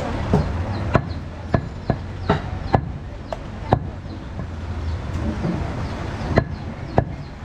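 Butcher's cleaver chopping goat meat, a run of sharp, irregular chops about two a second. The chops pause for a couple of seconds, then two more come near the end.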